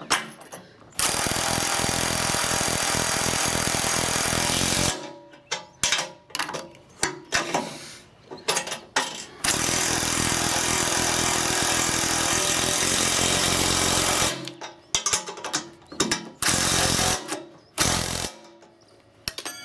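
Impact driver hammering as it tightens the bolts holding a grab hook to a tractor loader bucket. It makes a long run of about four seconds and another of about five seconds, then two short bursts near the end. Scattered clicks between the runs.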